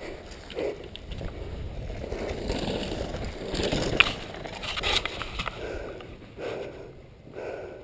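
Rustling and scraping of an action camera rubbing against riding gear as the rider moves, with one sharp knock about four seconds in. Soft puffs come about once a second near the start and end.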